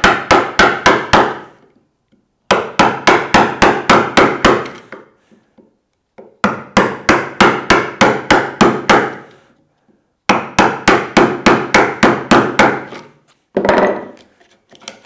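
Wooden mallet striking a bevel-edge chisel, chopping waste out of a bridle joint slot in softwood 2x4 timber. The blows come in four quick runs of about five a second, each lasting a couple of seconds with short pauses between, and two more near the end.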